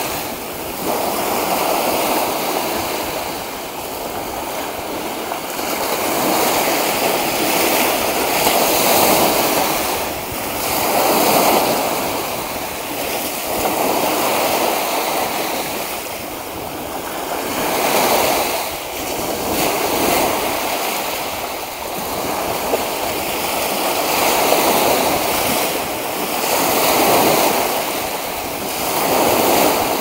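Small sea waves breaking and washing up a sandy beach: a steady rush of surf that swells and fades with each wave, every two to three seconds.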